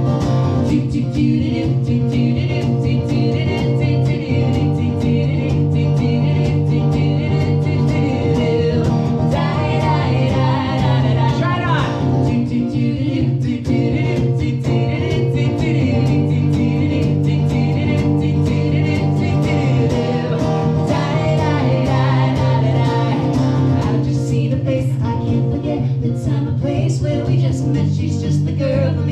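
Live acoustic duo music: a woman singing over a steadily strummed acoustic guitar, heard through a small PA system.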